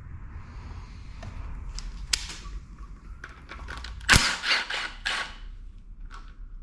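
Metal tools and engine parts clanking and clattering during an engine teardown: a sharp clank about two seconds in and a louder run of rattling clanks about four to five seconds in.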